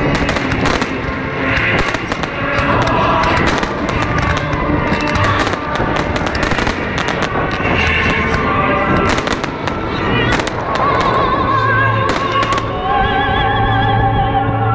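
Fireworks going off in rapid, irregular succession, many sharp bangs and crackles, over loud music playing throughout.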